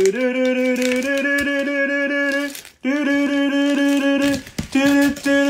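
A man's voice holding long, steady sung notes, each rising into pitch, with a brief break in the middle and shorter choppy notes near the end. Duct tape is being pulled off the roll underneath, heard as a faint regular crackle.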